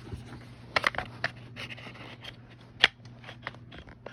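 Sharp metallic clicks and light clatter from handling an AR-15-type rifle and its magazine, a few separate clicks spread over the seconds with the loudest near the end.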